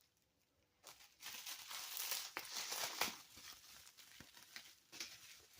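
Toy packaging crinkling and rustling as it is handled, starting about a second in and easing off into scattered small clicks.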